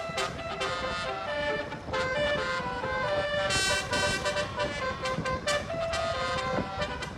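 Basuri telolet horn, a multi-trumpet musical air horn of the kind fitted to Indonesian buses and trucks, playing a tune of quick stepped notes, often two or more at once.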